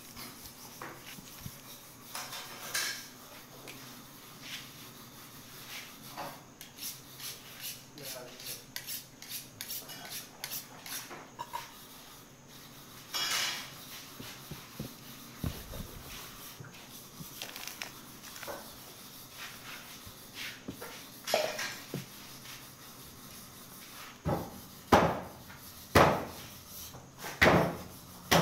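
A butcher's knife working through a raw beef hindquarter on a table, making scattered metallic clinks and scrapes. Several loud knocks come in the last few seconds.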